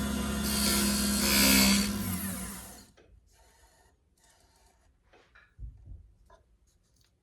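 Power tool working the wood of a duck call, running steadily with a hiss and hum, then winding down with falling pitch a little under three seconds in. After it stops, only a few faint light knocks of handling are left.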